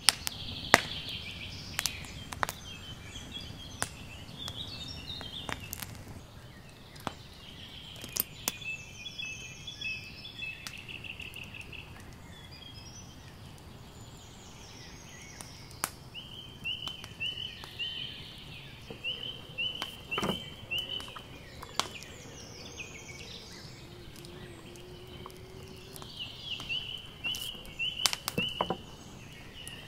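Songbirds singing outdoors in repeated chirping, trilled phrases, with scattered sharp clicks and taps from hands handling a raw duck on a wooden cutting board.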